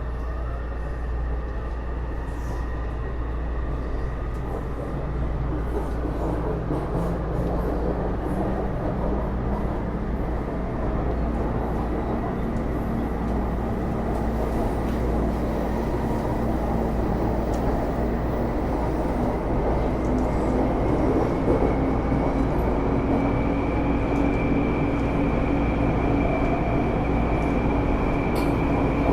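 Taipei Metro C301 metro car running, its Bombardier IGBT-VVVF traction inverter and motors giving a whine that rises in pitch in the first seconds as the train picks up speed, over wheel and track noise. The noise grows gradually louder, and in the second half a steady high whine holds at running speed.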